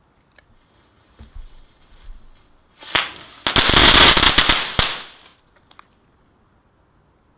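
Small consumer firework going off: a faint fuse hiss, then about two seconds of loud, dense crackling with hiss that stops abruptly.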